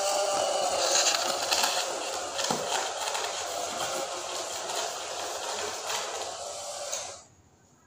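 Small DC gear motors of a cardboard toy train whirring as it runs along a paper-roll track, growing fainter as it moves away, then cutting off abruptly about seven seconds in.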